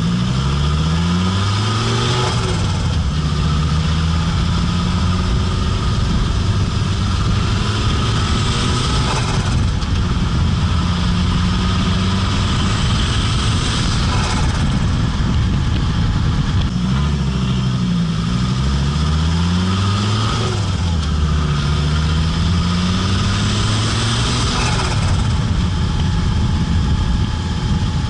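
Fiat Marea Turbo's turbocharged five-cylinder engine accelerating hard through the gears, its pitch rising in each pull. At each shift, four times, a short hissing flutter from the turbo is heard as the throttle is lifted.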